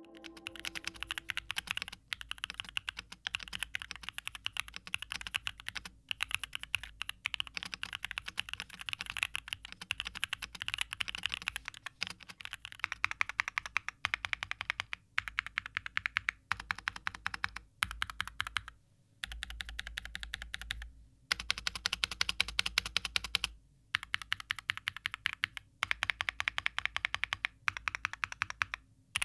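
Fast, continuous typing on a Wind Studio Sin65 aluminium-cased 65% custom mechanical keyboard, fitted with Epomaker Sea Salt silent switches. The keystrokes come in rapid streams, broken by short pauses every couple of seconds.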